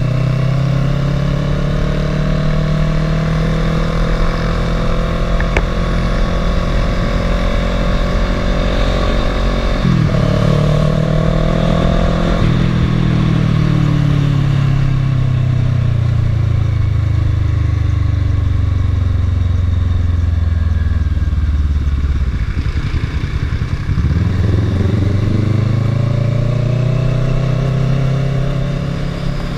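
Kawasaki ER-6n's parallel-twin engine under way, heard from the rider's seat and muffled by a waterproof camera case. It runs steadily with a gear change about ten seconds in, its note falls as the bike slows down, and it rises again near the end as the bike accelerates.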